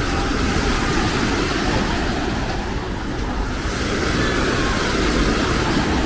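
Small waves breaking and washing up on a sandy shore: a steady rush of surf, with a low rumble of wind on the microphone.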